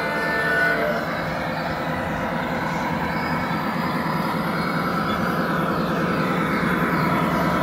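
Model trains running on a large model railway layout: a steady mechanical running noise with no clear breaks.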